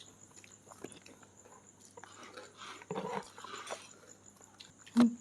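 Faint eating sounds: scattered small clicks and soft crunching and rustling, with one short, louder sound near the end.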